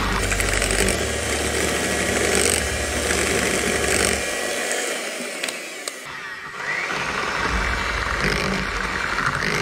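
Electric hand mixer running, its beaters whirring through egg, oil and sugar cake batter in a glass bowl. The sound dips for a second or two about halfway through, then picks up again.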